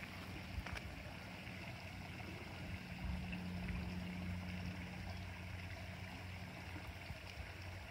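Steady outdoor background noise: a low hum under a soft hiss, with two faint clicks in the first second.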